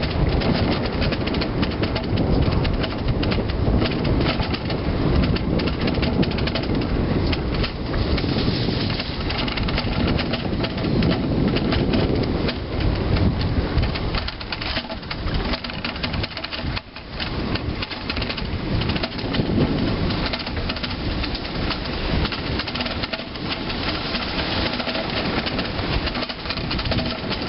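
Wind buffeting the microphone while a bicycle rolls over a concrete path, its tyres and frame rattling with the bumps; the noise eases off for a few seconds about halfway through.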